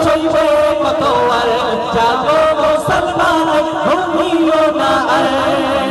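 Two men singing a Bengali Islamic gojol (ghazal) together into microphones, holding long drawn-out notes that waver in pitch.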